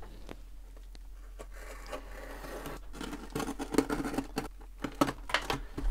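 Packing tape on a cardboard shipping box being slit with a craft knife, with scratchy cutting and tearing strokes and small knocks of hands on the cardboard. It is faint at first and gets busier about three seconds in.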